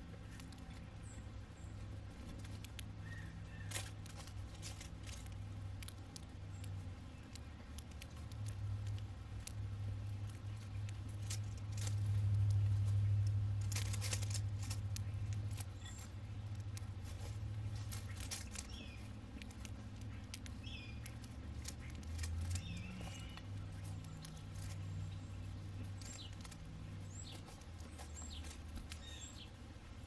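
House sparrows feeding at a seed saucer: scattered small ticks and taps of pecking at seed and a few faint chirps, over a steady low rumble that swells loudest about twelve to fifteen seconds in.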